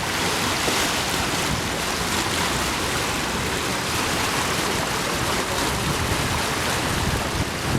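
Steady rushing noise of wind and sea water at sea aboard a sailing boat.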